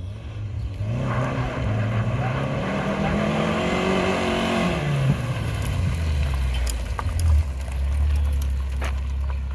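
Saturn car engine revving, its pitch climbing for a few seconds, then dropping back about halfway through and running on steadily at a low pitch.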